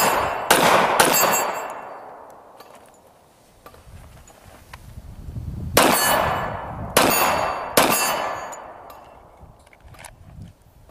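Glock 30S .45 ACP pistol fired in two quick strings of three shots, about half a second apart, the second string some five seconds after the first. Each shot trails a long echo.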